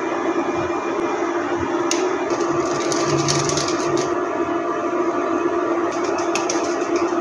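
An egg frying in hot oil in a nonstick pan, a steady sizzle with clusters of fine crackles about three seconds in and again near the end, over a steady hum.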